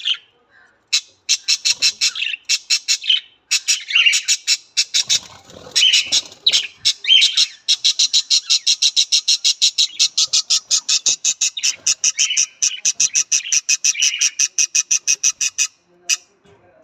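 Budgerigars chirping and squawking, which turns into a fast, even run of chirps, several a second, lasting most of the second half.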